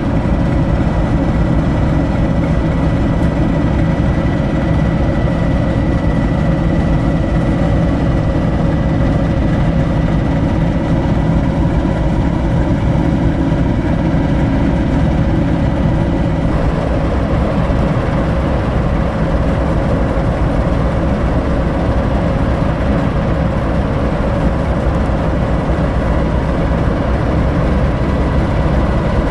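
British Rail Class 08 diesel-electric shunter, its English Electric six-cylinder diesel idling steadily while the locomotive stands. Its tone shifts slightly a little over halfway through.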